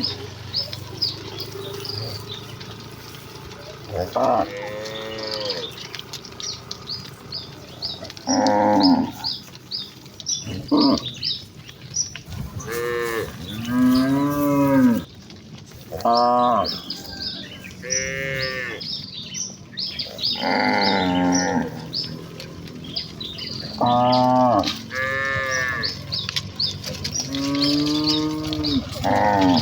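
A herd of cattle mooing, about a dozen long calls from several animals, some overlapping, with rapid high chirping going on behind them.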